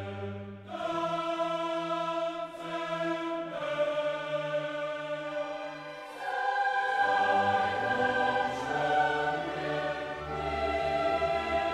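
Background choral music: voices holding slow, sustained chords that change every second or two, with a deeper bass entering about seven seconds in.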